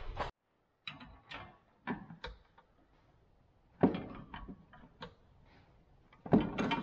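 Scattered light clicks and knocks of small metal parts being handled and fitted at an air-conditioning receiver-drier, with one sharper knock about four seconds in and a few more near the end.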